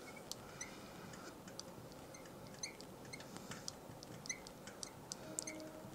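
Faint, irregular squeaks and ticks of a marker pen writing on a glass lightboard.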